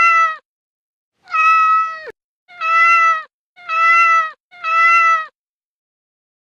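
Countdown sound effect: five drawn-out, pitched tones about a second apart, one for each number from five to one, each sagging in pitch as it ends.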